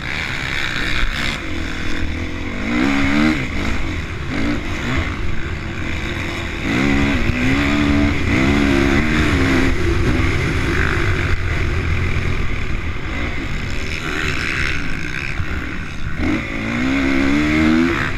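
Honda CRF450 single-cylinder four-stroke motocross engine at race pace, heard from the bike's own camera; the revs climb and drop back again and again as the rider twists the throttle and shifts, loudest in the second half.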